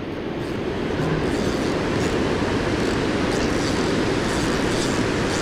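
Steady rush of water pouring over a low dam spillway, an even, unbroken roar.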